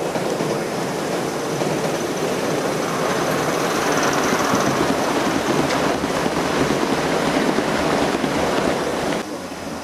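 Gauge 1 model train, a live-steam locomotive with coaches, running close past on the track, its wheels clattering over the rails. The sound swells as the train goes by, then drops abruptly near the end.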